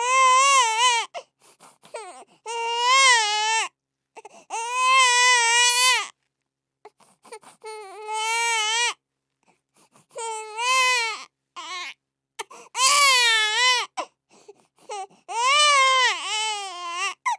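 Newborn baby crying hard: a string of high wailing cries, each about one to two seconds long, broken by short gasping pauses for breath.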